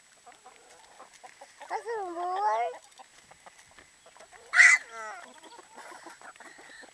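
Backyard hens clucking as they crowd around scattered feed, with a drawn-out call about two seconds in and one loud, harsh squawk about halfway through.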